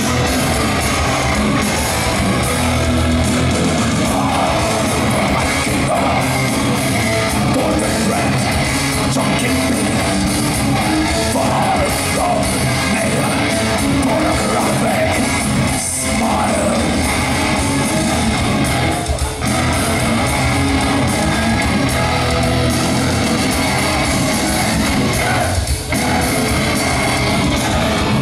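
Metal band playing live and loud: distorted electric guitars and drums, with the singer's voice over them.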